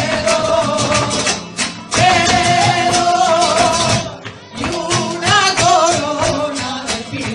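Live flamenco: a singer's wavering, held vocal lines over flamenco guitar, punctuated by sharp percussive strikes of the dancer's footwork and handclaps. The music drops away briefly a little after halfway, then picks up again.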